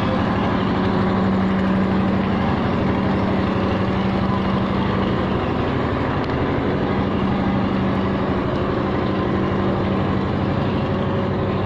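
Heavy diesel engine idling at the railway, a steady, unchanging drone with a strong low hum.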